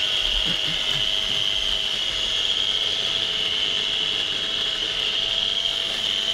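Baby-food maker's built-in blender motor running steadily with a high whine, puréeing steamed vegetables, chicken and pasta in its jar.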